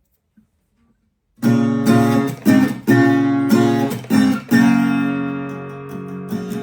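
Acoustic guitar strumming chords, starting about a second and a half in: several sharp strums in a rhythm, then a chord left ringing from about halfway through.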